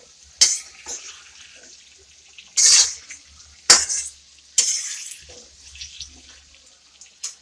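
A metal spatula scraping and knocking against a kadai while stirring diced potatoes frying in oil. The sound comes as several separate strokes: sharp clinks and longer rasping scrapes.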